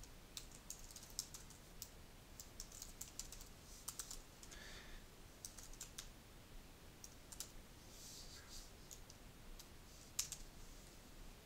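Faint typing on a computer keyboard: quick, irregular key clicks in short runs with pauses between them.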